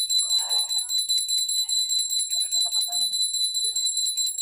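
A small metal bell ringing rapidly and continuously, a bright high jingle with no break.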